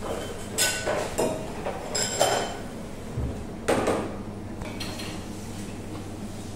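Kitchenware clattering: a handful of sharp knocks and clinks, some with a short metallic ring, the loudest about two seconds in, over a steady low hum.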